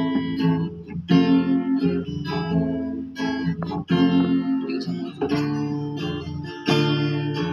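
Acoustic guitar strumming chords, a new strum about every second with the chords ringing in between, an instrumental stretch with no voice.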